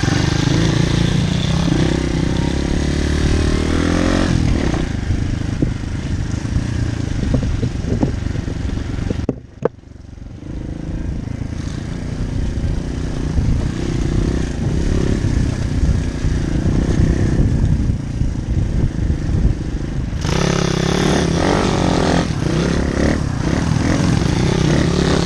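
Small single-cylinder pit bike engines running under way, the nearest one rising and falling in pitch as the throttle is worked, with rattling from the bike over rough ground. About nine seconds in the sound drops away sharply for a moment, then builds again.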